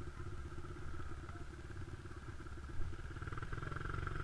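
Honda dirt bike engine running steadily while being ridden, a dense rapid putter that grows a little louder near the end.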